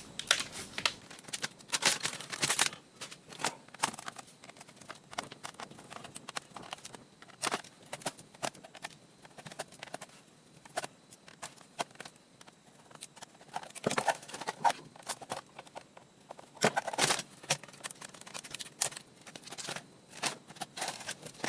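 Irregular clicks, snaps and knocks of plastic and metal parts as a laptop's screen assembly is pried apart by hand. The clicks bunch more densely a couple of seconds in and again around the middle.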